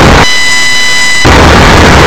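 Loud, distorted wind and motorcycle road noise is cut about a quarter second in by a one-second electronic beep, a steady pitched tone with overtones. The road noise drops out entirely under the beep and comes back abruptly when it stops.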